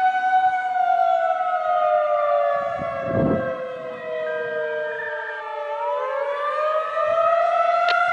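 Federal Signal 2001-SRN outdoor warning siren sounding the wavering attack signal. Its pitch slides slowly down over about five seconds, then climbs back up over the last two.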